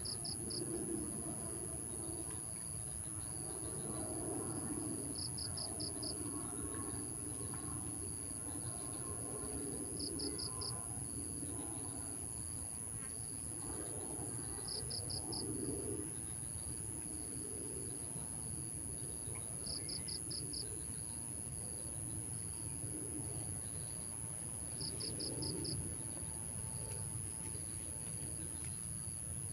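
Insects calling: a steady high-pitched drone with a short run of four or five quick chirps repeating about every five seconds, over a low rumbling background.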